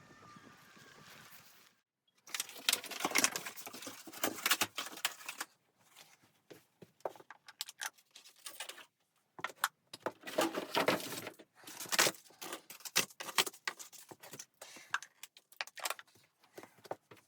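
Steady wind noise that cuts off about two seconds in, followed by irregular rustling, crinkling and light clattering as things are handled at close range.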